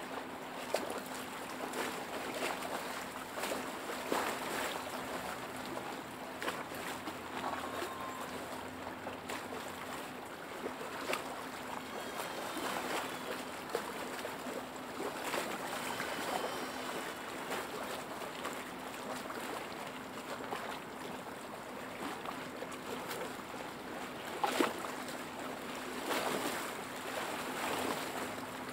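Small lake waves lapping and splashing over a steady wash of moving water, with irregular louder slaps every few seconds.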